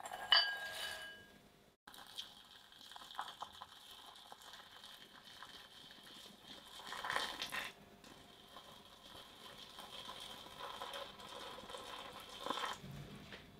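Raisins tipped into a glass bowl, briefly setting it ringing, then a thin stream of boiling water poured steadily over them for about ten seconds, stopping near the end.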